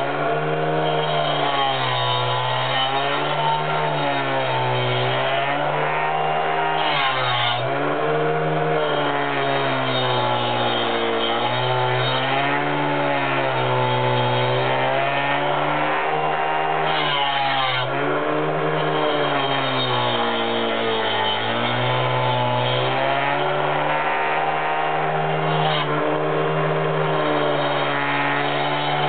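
An angle grinder fitted with a saw blade is running continuously while cutting round the edge of a particleboard disc. The motor's pitch sags and recovers every couple of seconds as the blade bites into the board.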